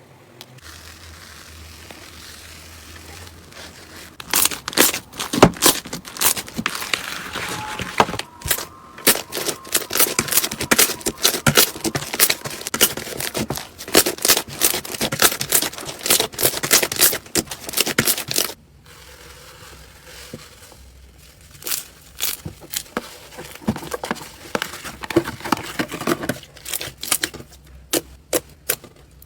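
Slime being squished and stretched by hand: dense, rapid crackling and popping clicks, which thin out to scattered pops about two-thirds of the way through.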